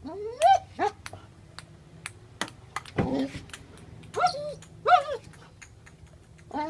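Border collie giving several short, high whining yips. Scattered sharp clicks of a ping-pong ball bouncing on the table and paddle run through them.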